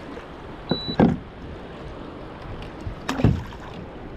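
A few clunks and two louder knocks, about a second in and about three seconds in, as gear is handled aboard a kayak. A short high electronic beep sounds just before the first knock.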